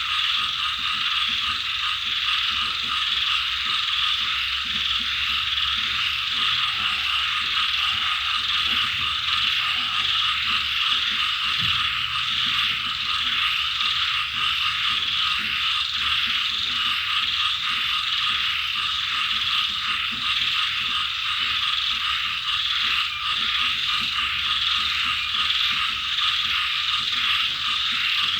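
Dense, steady night chorus of frogs and insects, a continuous fast ratcheting trill. A few lower single croaks stand out about a third of the way in.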